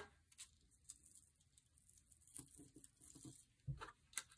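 Faint handling sounds of clear adhesive tape being worked from a handheld tape dispenser and pressed onto a paper card: light scattered ticks and rustles, then a soft low thump a little before the end.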